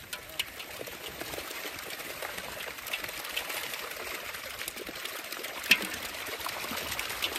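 Live fish packed in a seine net in shallow pond water, splashing and flapping with a steady trickling patter of quick wet slaps as they are scooped out by hand; one sharper splash about three-quarters of the way through.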